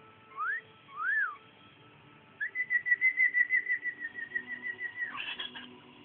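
Cockatiel whistling: two short upslurred notes, then a long warbling whistle held near one pitch with a fast flutter of about six pulses a second, ending in a couple of rougher chirps.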